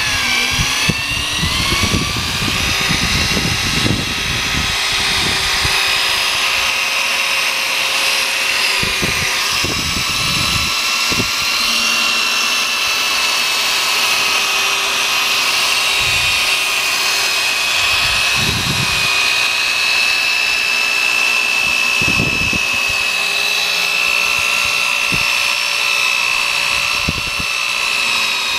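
Power drill spinning a foam polishing pad against a plastic headlight lens, buffing it with polishing compound. The motor's whine rises in pitch over the first couple of seconds, then holds steady, with occasional low thumps.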